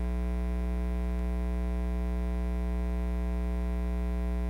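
Steady electrical mains hum with a row of buzzing overtones in the sound system, stepping up a little in level right at the start; no speech.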